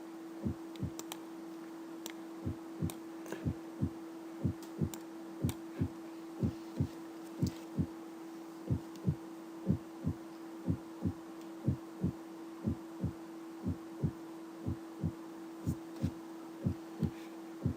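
Recorded heart sounds played for auscultation teaching: short, low lub-dub thumps repeating steadily about once a second, demonstrating the first heart sound (S1), the closure of the atrioventricular valves. A steady hum runs under the beats.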